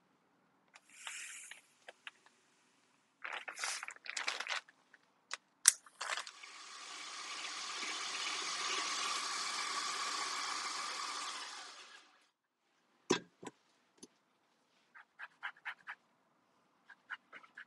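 Kitchen preparation sounds while baking: scattered clicks and scrapes of utensils and containers, then a steady rushing noise that swells and fades over about six seconds, a single dull knock, and a few light taps near the end.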